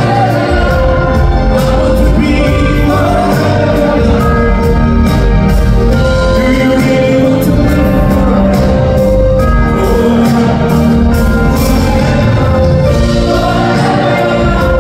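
Live pop band with orchestral strings playing a song over a steady beat, with a male lead vocalist singing into a microphone.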